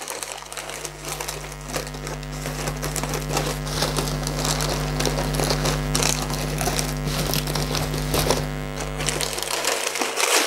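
Shredded-paper packing and brown wrapping paper rustling and crinkling as hands dig through a cardboard box. Under it runs a steady low hum that stops shortly before the end.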